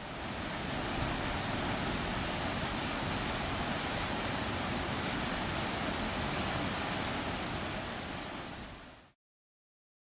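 Nachi Falls, a 133 m single-drop waterfall running full after rain, pouring with a steady rushing roar. The sound fades slightly near the end and cuts off about nine seconds in.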